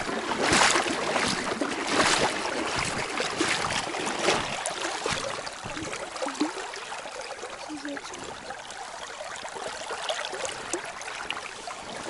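Shallow river current trickling and burbling around a wading angler's legs, with a few louder swells in the first four seconds, then steady and softer.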